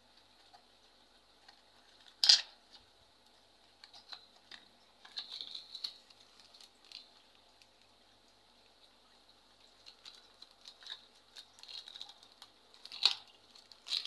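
Motorcycle spare-part packaging handled by hand: a small cardboard spark-plug box and plastic cable packets rustling and crinkling, with a sharp click about two seconds in and another near the end.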